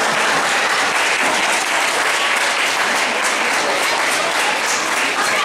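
Audience applauding steadily, with single claps standing out more toward the end.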